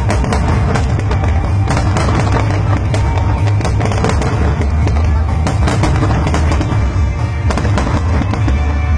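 Fireworks bursting in quick, irregular succession: many sharp cracks and bangs over loud accompanying music with a steady low bass.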